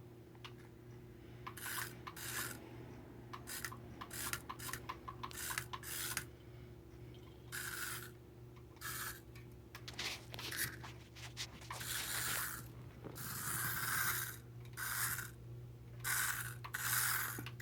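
Toy car running over the floor in many short bursts of scraping and rattling from its wheels and gears, with quick clicks in between, over a steady low hum.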